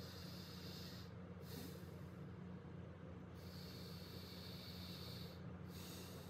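Alternate-nostril breathing: slow, faint breaths drawn in and let out through one nostril while the other is held shut. There are several breaths with short pauses between them, the longest about two seconds a little past the middle. A steady low hum runs underneath.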